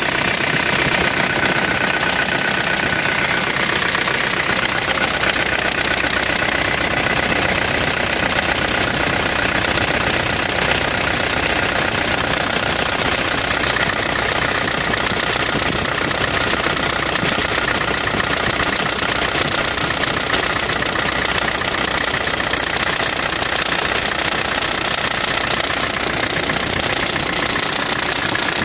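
Nissan Navara D22 engine running with a steady knocking rattle, which the owner suspects is timing chain wear or big-end bearing failure creeping up.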